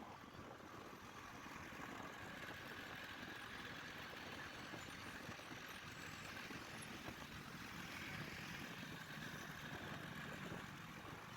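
Steady road traffic noise: vehicle engines and tyres running.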